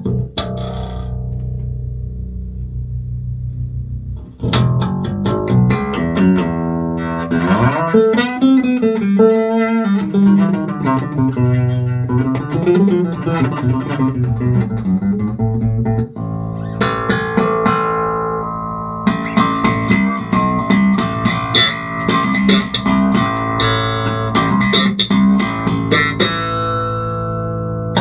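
Electric bass guitar with Aguilar humbucking pickups and an Aguilar preamp, played solo. A low note rings for about four seconds, then come plucked notes with sliding, bending pitch. After about sixteen seconds the playing turns busier, with brighter, sharper attacks.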